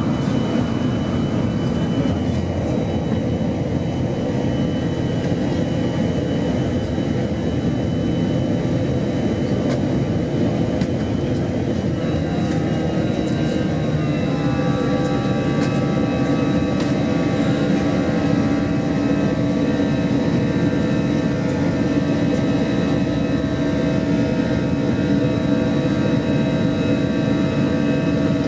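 Steady jet cabin noise inside an Airbus A321-211 climbing out after takeoff: the rush of airflow with the hum of its CFM56 turbofan engines. About halfway through, the engine tones shift in pitch and settle at a new steady level.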